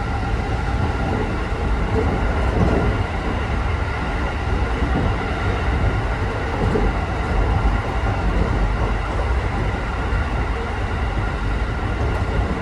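Local electric train running at speed between stations, heard inside the passenger car: a steady rumble of wheels on rail with a faint steady hum from the running gear.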